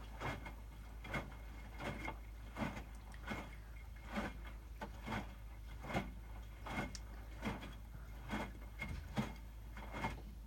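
Hotpoint WMFUG 942 front-loading washing machine tumbling its wash slowly in the heating stage of a 60° cycle: wet laundry and water slosh and thump in the drum about once a second, over a steady low hum.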